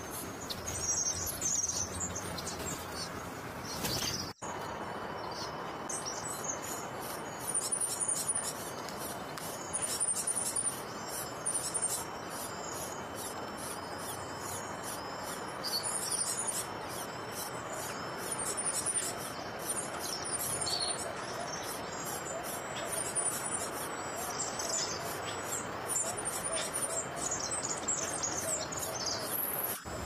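Nestling birds begging, thin high-pitched chirps repeated in quick runs over a steady background hiss, with a brief dropout about four seconds in.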